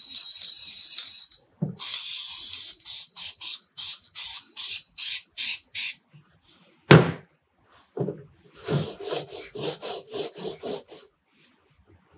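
Aerosol spray-adhesive can hissing in a long spray that stops about a second in, then a quick string of short spray bursts. About seven seconds in there is one sharp knock, followed by a run of quick scuffing, rubbing strokes.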